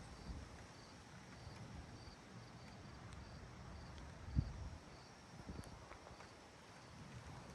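A cricket chirping steadily and faintly, about two short high chirps a second, over a low rumble with a single thump about four seconds in.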